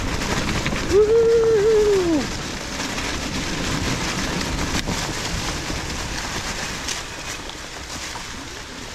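Fat tyres of an electric mountain bike rolling over a trail deep in dry fallen leaves: a steady crackling rustle, with wind on the microphone. About a second in, a short pitched sound rises and then falls over it.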